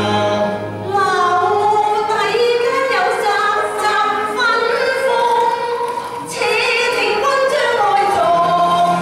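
Small mixed choir of women and men singing a Cantonese opera (yuequ) song together, the melody moving through held and gliding notes.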